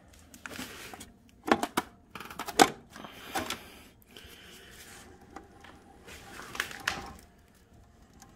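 WD-40 aerosol can spraying in several short hissing bursts onto the stuck drive wheel and its axle on a snowblower, to free the gummed-up grease, with a few sharp metal clicks about a second and a half in.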